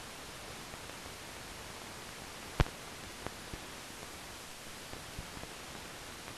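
Steady hiss of an old newsreel film soundtrack, with scattered faint crackles and one louder pop about two and a half seconds in.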